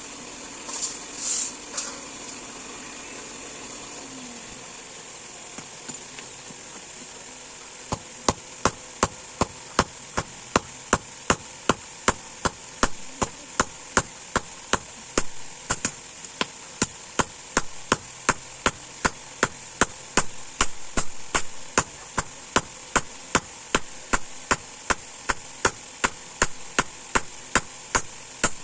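Hand hammer striking spring steel on an anvil as a knife blade is forged, about two to three blows a second, starting about eight seconds in over a steady hiss.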